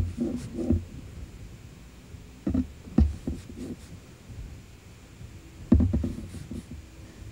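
Large bristle brush stroking wet oil paint on a stretched canvas: dull thumps of the canvas and short scrapes of the bristles, in three brief groups.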